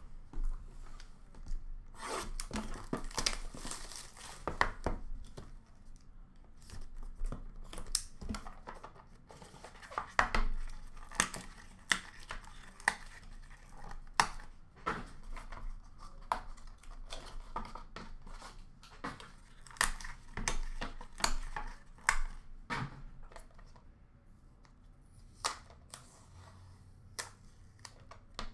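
Hands tearing and crinkling the wrapping and packaging of a sealed hockey card hobby box: a run of sharp rips and crackles that comes in busy stretches and thins out near the end.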